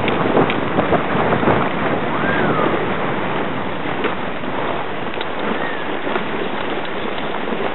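Sledge sliding fast down a packed-snow run: a steady rushing, scraping noise of the runners on snow, mixed with wind buffeting the microphone. A few knocks from bumps in the track come in the first two seconds.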